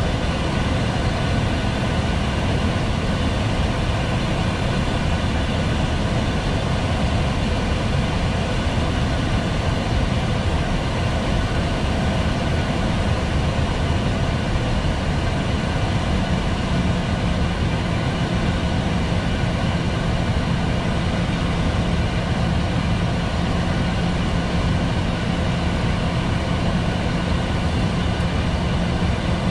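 Steady flight-deck noise of a Boeing 737-800 on approach: a constant rush of airflow and engine hum with a hiss on top. A steady low hum joins about halfway through.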